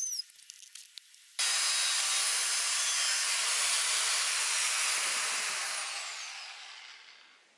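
Angle grinder with a cut-off disc cutting through a steel drill bit held in a vise. After a few faint clicks, a steady grinding hiss starts abruptly about a second and a half in, then fades away with a falling whine near the end as the disc spins down.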